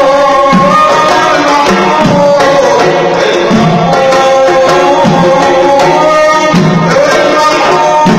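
Sulamiya, Tunisian Sufi chant: men's voices singing long held, gliding notes together over a hand drum that beats a slow, steady deep stroke about every second and a half.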